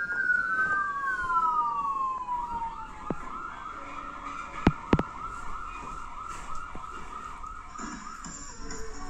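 Electronic police-siren sound from children's ride-on electric police motorcycles. Two overlapping wails rise and fall, then about two and a half seconds in the sound changes to a fast, repeating warble. Two sharp clicks come close together near the middle and are the loudest moments.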